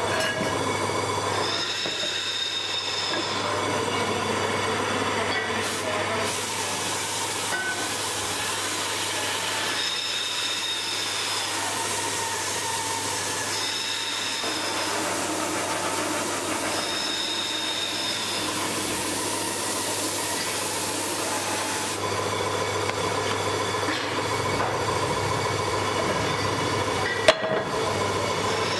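Compressed-air paint spray gun hissing steadily as a brake drum is sprayed, starting about six seconds in and stopping about twenty-two seconds in. Underneath is a constant mechanical workshop background with brief high whistling tones recurring several times, and a sharp click near the end.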